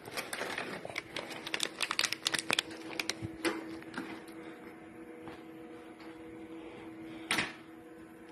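Automatic coffee packing machine running: rapid, irregular mechanical clicking for the first half over a steady low hum, then one short burst of noise about seven seconds in.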